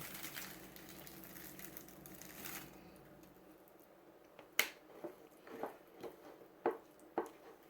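Basting brush swishing over ears of grilled corn as it spreads a butter and mayonnaise coating, fading out after about two and a half seconds. Then a few light sharp clicks and taps, the first and loudest about four and a half seconds in.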